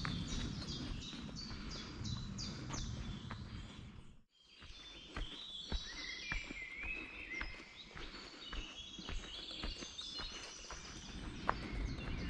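Songbirds singing and calling, with a quick run of repeated high falling notes at first and varied calls after, over a hiker's footsteps and a low rumble of wind and handling on the action camera. The sound drops out briefly about four seconds in.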